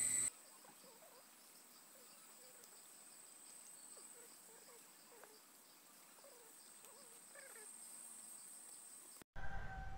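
Cicadas shrilling in one steady high-pitched tone. It is loud for a moment, then cuts abruptly to a faint, even drone that carries a few faint, short chirps.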